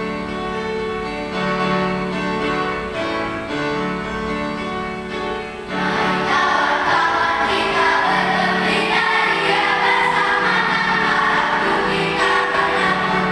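A choir rehearsing a hymn with instrumental accompaniment. For about the first half only held accompaniment notes sound, then the choir comes in and the music grows louder and fuller.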